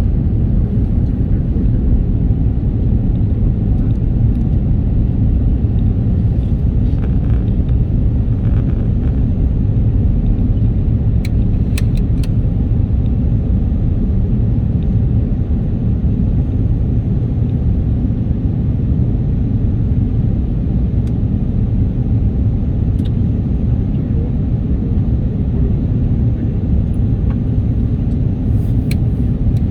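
Steady low rumble of an airliner's passenger cabin in flight: engine and airflow noise heard from inside the cabin, with a few faint clicks.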